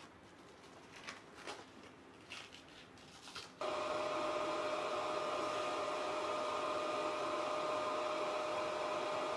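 A few light clicks and knocks as the oxygen mask and hose are handled, then, about a third of the way in, a steady hiss with a high hum starts suddenly and holds: air from the mask tester flowing through the pilot's oxygen mask hose.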